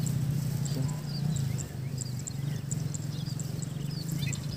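A steady low drone with a fast, even pulse. Short high chirps repeat faintly above it.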